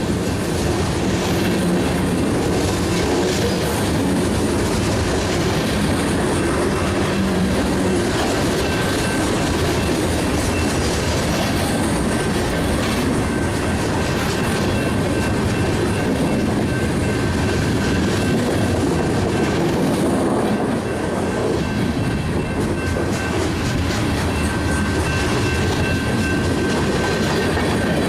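Manifest freight train's cars rolling past: a steady rumble of wheels with rail-joint clickety-clack, and a faint thin high whine through the middle stretch.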